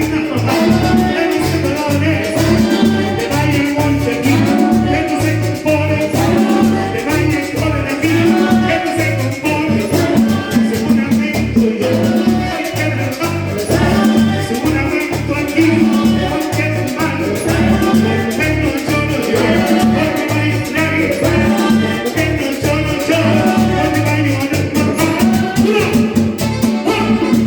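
Latin dance music from a band, an instrumental stretch with a steady, rhythmic bass line under the other instruments.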